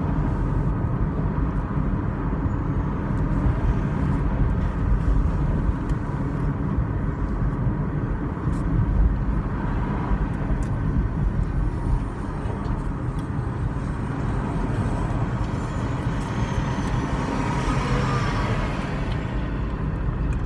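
Wind and road noise inside a moving car with a window open: a steady low rumble and buffeting. A faint falling whine comes through near the end.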